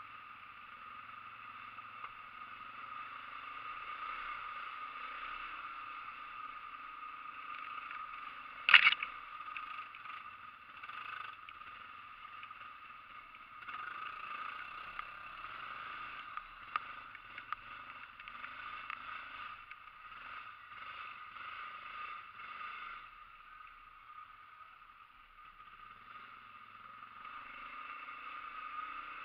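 ATV (quad bike) engines running, their pitch wavering as they work, with one sharp knock about 9 seconds in.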